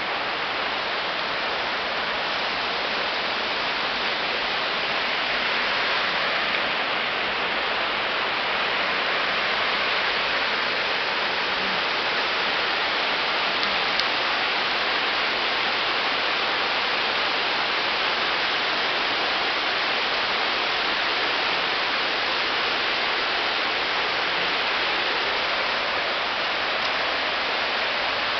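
Rushing water of a nearby mountain stream or torrent, a steady, even noise.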